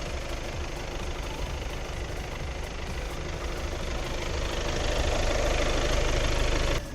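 Audi A3's 2.0 TDI four-cylinder diesel engine idling steadily, gradually getting louder over the second half and cutting off suddenly near the end.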